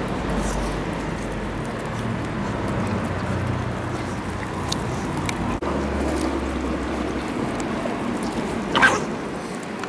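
Puppies growling and tearing at a slab of raw meat, over a steady low rumble, with one short sharp sound near the end.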